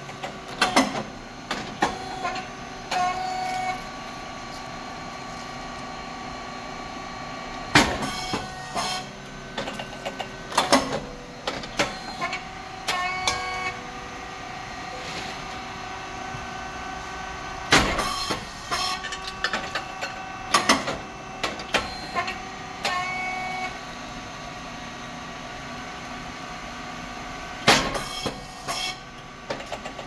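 Puffed rice cake machine running its automatic cycle: about every ten seconds a sharp pop as the hot moulds open and the rice cakes puff, then a flurry of clicks and short whistling tones from the moving mould and cylinder. A steady machine hum runs underneath.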